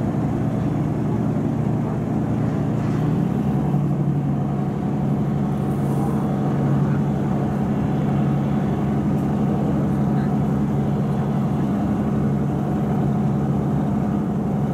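Ferry's diesel engine running with a steady low drone, heard from aboard. About three seconds in its tone shifts slightly, then holds.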